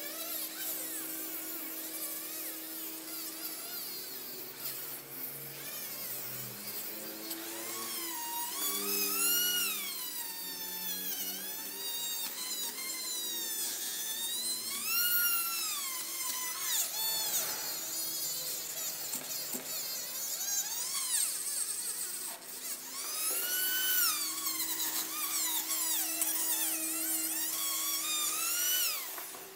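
Handheld rotary tool with a small polishing wheel whining as it buffs rust off an air gun's metal tube. Its pitch repeatedly dips and rises as it bears on the metal.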